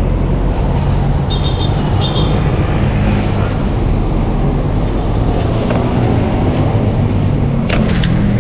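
Steady engine and road noise of a pickup truck under way, heard from its open bed with the tailgate down, with a low hum and a few light clicks.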